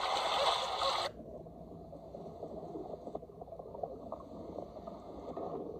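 Splashing water noise for about a second, then abruptly muffled water sounds: a low gurgling with many small crackles.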